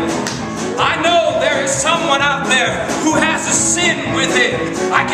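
A singer performing a musical-theatre number with a live band of piano, bass and drums, holding notes with a wide vibrato.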